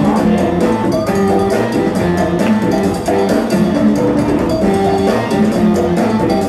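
Loud break music played by a DJ through the PA: a steady drum beat with short, repeating melodic notes over it.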